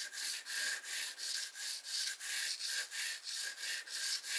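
Pencil shading back and forth on a canvas sheet: a rhythmic scratchy rubbing, about three strokes a second, that stops abruptly at the end.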